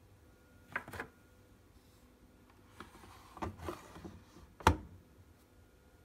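Light plastic clicks and knocks from handling a measuring cap at a washing machine's detergent drawer, then one sharp knock about four and a half seconds in as the drawer is pushed shut.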